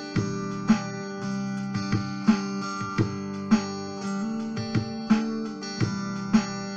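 Stratocaster-style electric guitar played through a small amp, strumming chords. Sharp accented strokes recur every half second to a second over ringing sustained notes.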